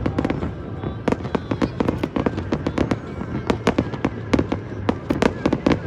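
Aerial fireworks going off in quick succession: many sharp bangs and crackles, several a second, over a continuous low rumble.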